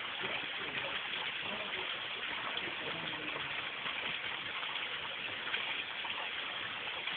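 Running water: a steady, even rush with no breaks.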